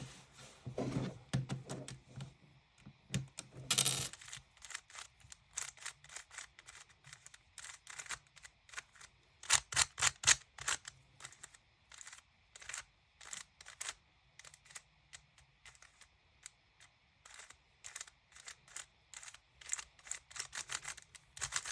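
GAN maglev speedcube being turned, giving an irregular run of sharp plastic clicks as its layers snap round, with a quick flurry of turns about ten seconds in.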